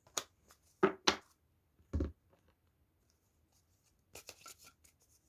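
Tarot cards being handled and shuffled by hand: a few sharp slaps and taps in the first second or so, a duller thump about two seconds in, then a quick patter of small card clicks near the end.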